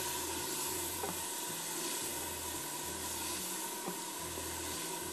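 Chopped onion, ginger-garlic paste and sliced tomatoes frying in oil in a large pot, with a steady sizzle, and a wooden spoon now and then tapping the pot as it is stirred.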